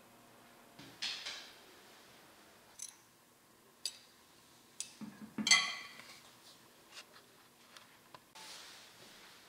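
A metal serving spoon clinking and scraping against a baking dish and plate as baked rice is dished out: a few light clinks, the loudest a ringing clink about five and a half seconds in.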